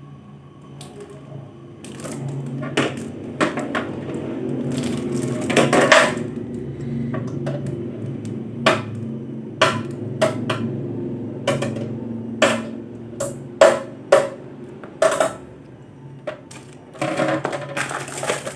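Handling noise as an inverter welder's metal case and its rubber power cord are moved about on a tile floor: a string of sharp clicks and knocks at irregular intervals over a steady low hum, with plastic rustling near the end.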